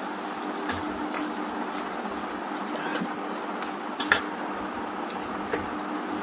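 Fish pieces frying in hot oil in a kadhai: a steady sizzle with occasional sharp pops, the loudest about four seconds in.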